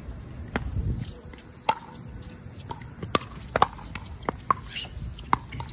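Pickleball rally: paddles popping a plastic ball back and forth, about half a dozen sharp pops at uneven intervals, the loudest a little over halfway through.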